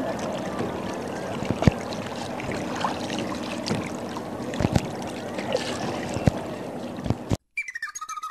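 Water lapping and gurgling against a plastic sit-on-top kayak's hull, with a few sharp knocks on the hull. The sound cuts off shortly before the end, and faint guitar music begins.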